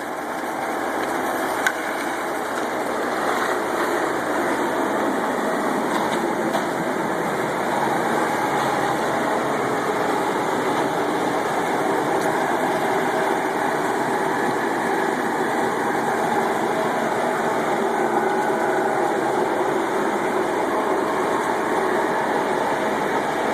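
Concrete pump truck's diesel engine running steadily while pumping concrete for a slab pour, building up over the first few seconds and then holding level.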